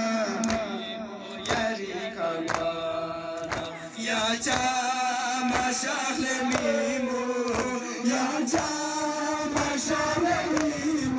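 Men's voices chanting a Shia mourning lament for the 21st of Ramadan, held notes rising and falling, with regular sharp thumps about once a second keeping time, consistent with hands striking chests in matam.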